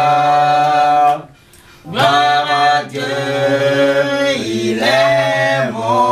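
Unaccompanied voices singing a French worship song, holding long notes, with a brief pause about a second in before the singing goes on.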